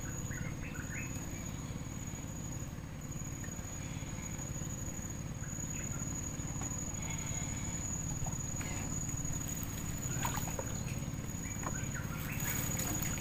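A steady, thin, high insect drone over a low background rumble, with a few faint short chirps and some small clicks and knocks near the end.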